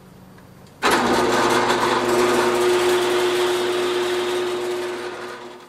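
Floor-standing drill press running with its bit boring a hole in a wooden board: a steady motor hum under the hiss of the cut. It starts suddenly about a second in and tails off near the end.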